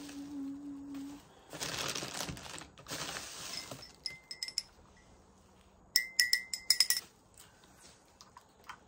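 Paper rustling as items are unwrapped, then small ceramic pieces clinking against each other. The clinks come a few at a time, then in a quick, louder run of ringing pings past the middle.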